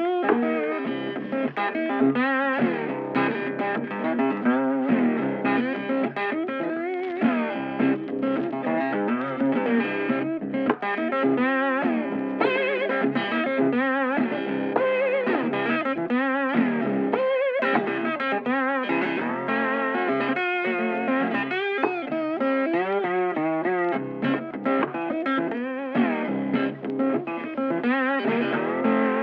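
Background music: electric guitar playing a quick melodic line.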